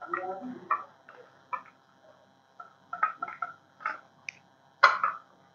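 Light, irregular clinks and taps of steel idli mould plates being handled and greased with oil, with one louder knock near the end.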